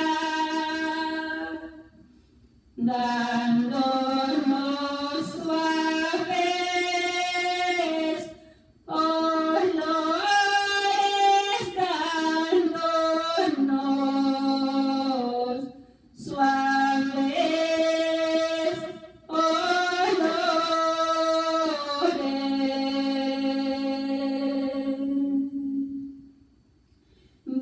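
A woman singing a Spanish praise hymn unaccompanied into a handheld microphone, in long phrases separated by short pauses.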